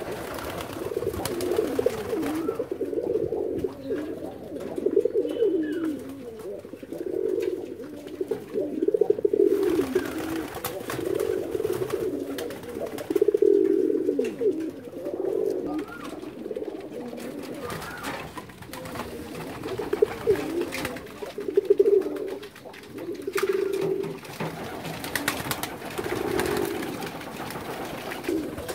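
A flock of domestic fancy pigeons cooing continuously, many overlapping coos rising and falling.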